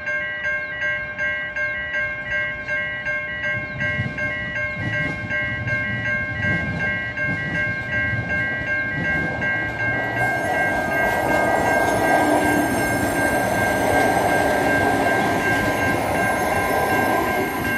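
Level crossing warning bells ringing in quick, even strokes, about three a second, while a passenger train approaches. The train's rumble grows from about four seconds in, and from about ten seconds in the train passes by loudly, its wheels and running gear rushing over the crossing.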